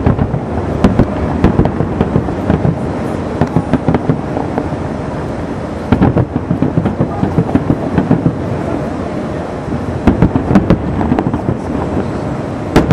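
Aerial firework shells bursting in quick succession: booms and crackling over a continuous rumble, with clusters of sharp bangs about a second in, around six seconds in, and again around ten seconds in.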